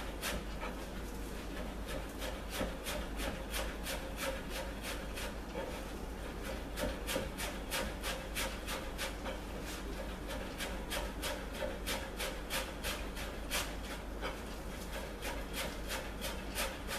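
Chef's knife finely chopping parsley and coriander on a plastic cutting board: a quick, even run of blade taps against the board, about three to four a second.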